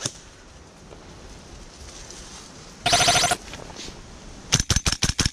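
Airsoft rifle firing a rapid string of sharp shots near the end, after a brief piercing pitched sound about three seconds in.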